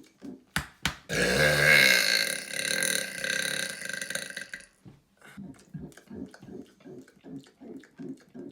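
A man's long, loud, deliberate burp, lasting about three and a half seconds and starting about a second in. It is followed by a quick, regular series of short soft sounds, about three a second.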